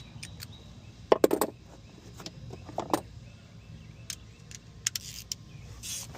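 Metal hand tool clicking and clinking as the oil drain plug is tightened back in after an oil drain. A quick cluster of clicks comes about a second in, then a few single clicks.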